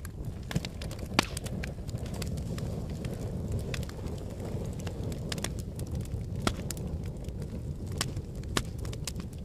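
A fire burning, with a steady low rumble and frequent irregular crackles and pops; the sharpest pop comes about a second in.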